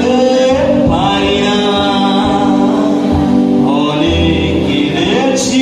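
Live band music: a man sings into a microphone, holding and sliding between notes, over electric guitar and drum kit, all amplified through stage speakers.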